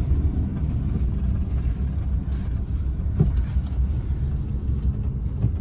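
Steady low engine and road rumble heard from inside the cab of a vehicle driving along a highway.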